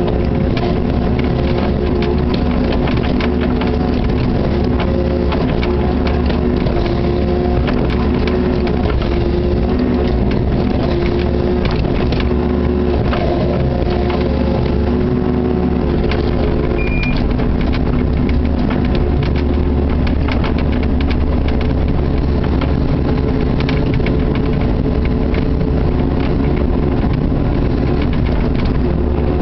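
Kubota KX61-3 mini excavator's three-cylinder diesel engine running steadily, heard from inside the cab, its note shifting a little as the boom and bucket work. Scattered knocks and scrapes of the steel bucket breaking up ice run through it.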